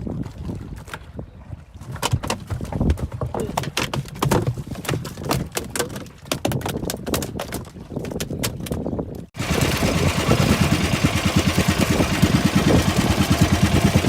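Irregular knocks and clatter over low wind and water noise. After an abrupt cut, a boat engine runs steadily and louder, with a fast, even beat.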